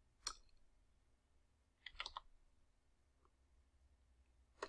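A few computer keyboard keystrokes over near silence: one click just after the start, a short cluster of clicks about two seconds in, and another click near the end.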